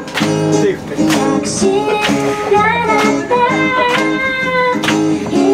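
A woman singing a melody live to a strummed acoustic guitar, the strums falling in a steady rhythm.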